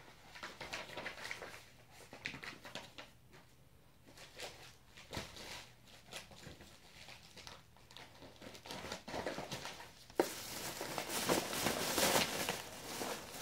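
Rustling, scraping and small clicks as a baby moves about on a play mat right against the microphone, growing louder and denser about ten seconds in.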